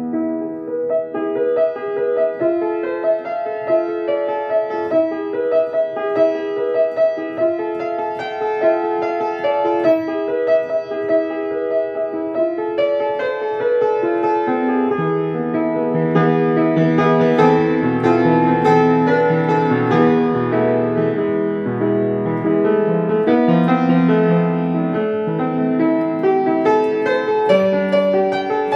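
Grand piano played solo, a quick pattern of repeated mid-range notes over chords. About halfway through, low bass notes come in and the playing grows louder and fuller.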